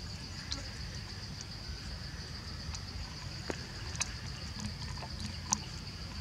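A baby monkey sucking milk from a feeding bottle, heard as a few faint scattered clicks, over a steady high-pitched insect drone.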